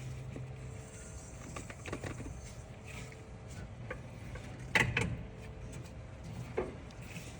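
Scattered light metallic clicks and knocks of hand work on a small-block Chevy engine while the distributor is worked down to engage the oil pump drive. There is one sharper knock near the middle.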